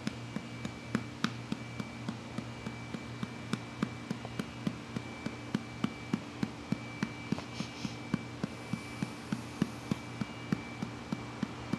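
A baby making short, repeated clicks or gulps, about two to three a second, some stronger than others.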